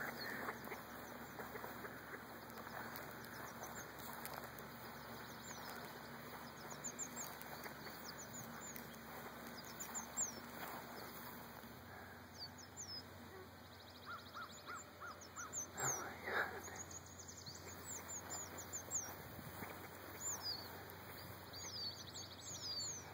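Faint, high, thin peeping of young ruffed grouse chicks: short chirps scattered throughout, busier in the second half. A quick run of about five lower notes comes about fourteen seconds in, and a brief rustle a couple of seconds later.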